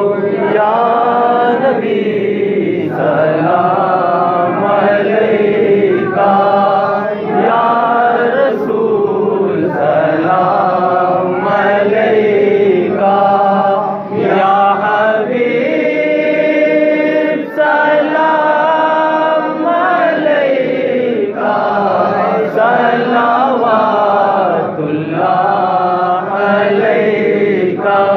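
A man's voice chanting a devotional salaam, a standing recitation of greetings to the Prophet, sung without instruments in long melodic phrases with brief pauses for breath.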